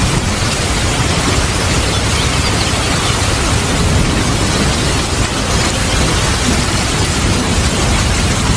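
Steady heavy rain with a continuous low rumble of thunder underneath, no sharp thunderclap.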